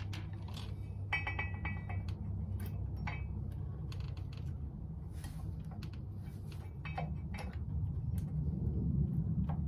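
Brake pads and caliper parts clinking and tapping, metal on metal, as the pads are worked into the rear brake caliper, some clinks ringing briefly, over a steady low hum.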